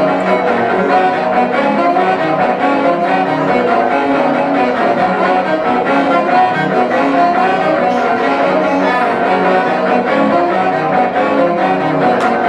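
Instrumental music playing steadily, without singing.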